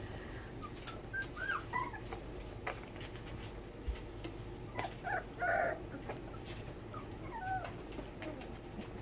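Four-week-old miniature Bordoodle puppies whimpering and yipping in short, high squeaks, a handful scattered through, with light scuffling on their bedding.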